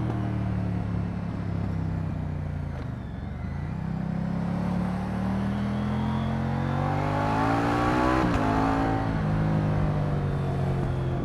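Moto Guzzi V100 Mandello's transverse V-twin engine under way. It eases off briefly, then accelerates with rising pitch. Around eight seconds in the pitch breaks sharply, as at a gear change, before it pulls again.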